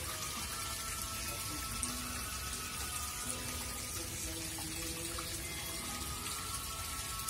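Small fountain in a shallow pool, water splashing steadily, with faint music underneath.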